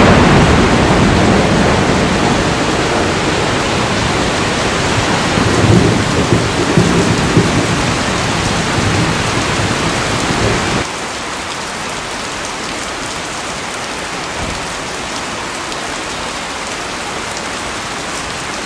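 Steady rain with rolling thunder rumbling underneath, loudest at the start and swelling again about six to seven seconds in. The thunder stops abruptly about eleven seconds in, leaving only the even hiss of falling rain.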